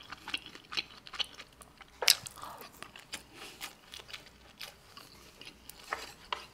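A person chewing a mouthful of food close to the microphone: irregular soft wet clicks and smacks of the mouth, with one sharper click about two seconds in.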